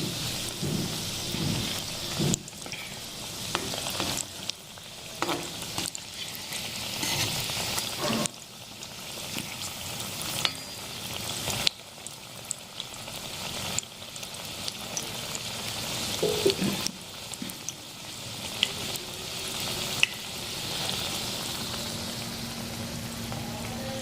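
Potato kachoris deep-frying in hot oil on a low flame: a steady sizzle, broken by scattered sharp clicks and taps.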